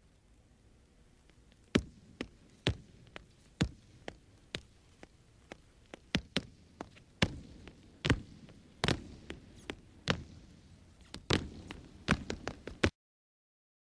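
Flamenco footwork (zapateado): sharp heel and toe strikes, sparse and about a second apart at first, then growing faster and denser, cut off abruptly near the end.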